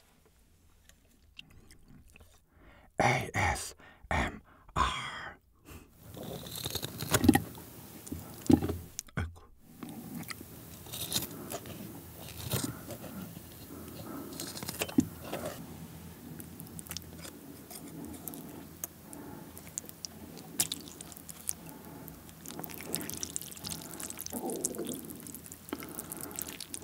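Kitchen scissors snipping lengthwise through grilled pork ribs held in metal tongs: a long run of crunchy snips and clicks, after a few sharp knocks about three seconds in.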